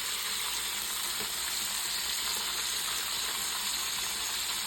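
Chicken thighs frying in avocado oil in a skillet: a steady sizzle.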